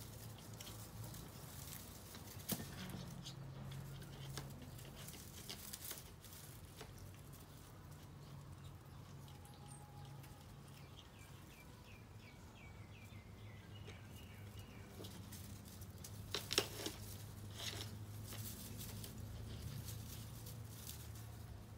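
Soft rustling of long grass blades and a few light taps as two cats paw at and chew the grass in a plastic planter, over a low steady hum.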